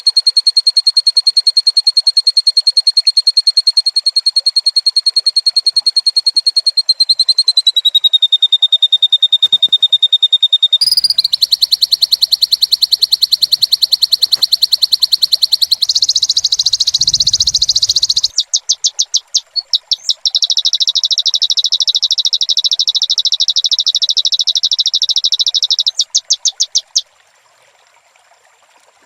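Loud, rapidly pulsed animal trills, high-pitched and one after another: a long steady trill that drops slightly in pitch, then a fuller, harsher trill with a brief low buzz, then fast pulsing calls that stop a couple of seconds before the end.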